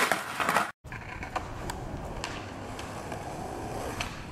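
Skateboard wheels rolling over concrete, a steady rumble with a few light clicks. The sound cuts out for an instant under a second in.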